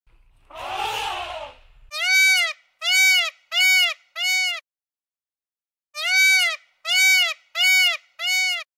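An animal calling: one rough, noisy call, then two groups of four short calls that each rise and fall in pitch, with a pause between the groups.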